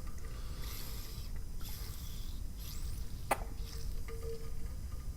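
Faint, soft chewing of a dry buttermilk biscuit, with one sharp click a little past halfway.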